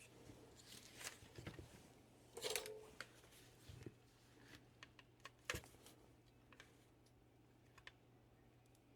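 Faint, scattered clicks and taps of hands and tools handling the cooktop's plastic housing and parts while working the cooling fan loose, the two most distinct about two and a half and five and a half seconds in.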